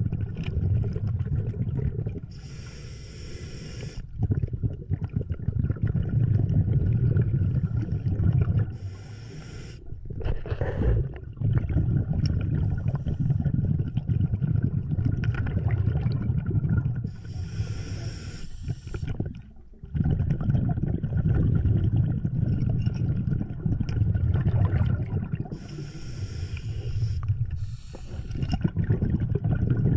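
Scuba diver breathing through a regulator underwater, heard through the camera housing: a hissing breath about every eight seconds, four times, with a low bubbling rumble of exhaled air between them.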